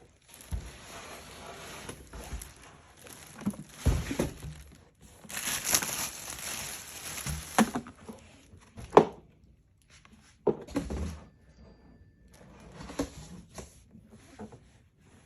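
Packaging being unpacked: plastic and cardboard rustling and crinkling in stretches, broken by several sharp knocks and thumps as parts are handled, the loudest about nine seconds in.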